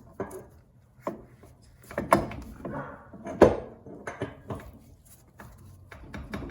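Irregular knocks and clacks of tools and suspension parts being handled and set down during rear suspension work, with one sharp knock about three and a half seconds in.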